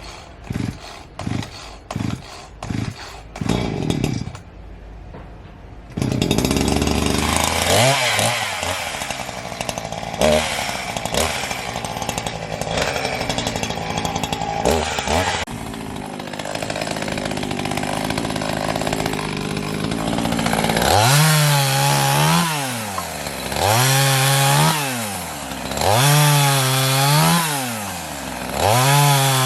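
Chainsaw being pull-started: about seven short, quick pulls on the cord, then the engine catches about six seconds in and runs loud. Near the end it revs up and down in repeated cycles about every two seconds.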